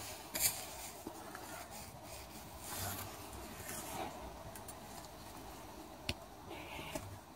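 Light workshop handling noises from a bicycle wheel being worked on by hand: scattered small clicks and rubbing as spokes are handled at the hub and rim, with a sharper click just under half a second in and another about six seconds in.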